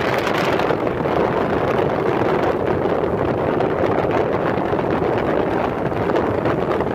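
Steady wind rush on the microphone of a moving motorcycle, with the bike's running and road noise underneath.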